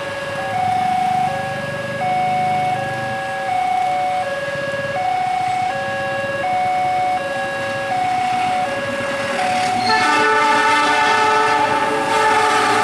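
Level-crossing warning alarm sounding a repeating two-tone high–low signal. About ten seconds in, an approaching train's air horn starts a long, loud multi-tone blast: the semboyan 35 warning signal.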